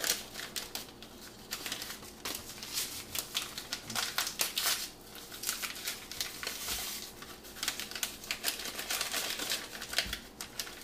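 Paper pouches of matzo ball mix crinkling as they are squeezed and shaken empty over a glass bowl: a dense, irregular run of crackles and rustles.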